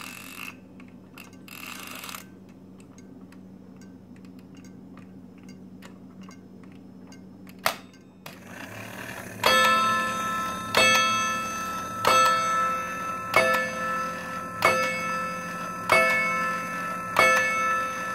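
Seiko transistor wall clock's chime: small hammers, run by a little motor, striking two metal chime rods of different lengths, which gives the rods a slightly off tone to each other. The strikes start about halfway through and ring out about every 1.3 s, seven times. Before that there are only light clicks and handling noise from the movement, and one loud click just before the chiming begins.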